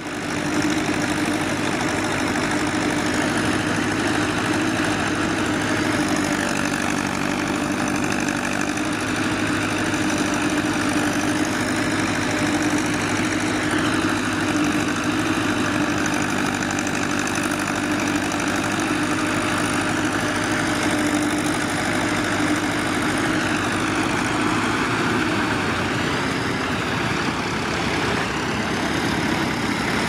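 Engine of a small vintage Massey Ferguson tractor running steadily under load as it pulls a mounted plough and turns on the headland, its note changing slightly near the end.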